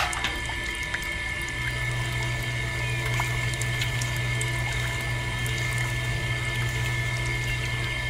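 Small electric motor running steadily with a constant whine, driving a miniature belt-driven roller press, while liquid trickles from the press's spout into a small plastic bucket. A light knock at the very start as the bucket is set down, and a deeper hum that joins about a second and a half in.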